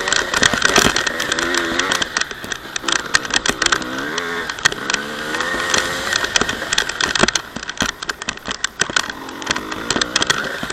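Honda CR250 two-stroke single-cylinder motocross engine being ridden, its revs rising and falling over and over as the throttle is worked. Many sharp clicks and knocks sound over the engine.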